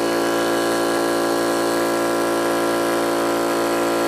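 Yong Heng high-pressure PCP air compressor running steadily with an even mechanical hum, pumping its filter line up to around 3,000 PSI with the tank valve still closed.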